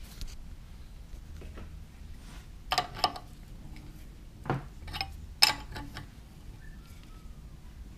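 Wrench tightening the clamp bolt on a Harbor Freight mini lathe's tailstock: a few sharp metal clinks and clanks, the loudest about five and a half seconds in, over a low steady hum.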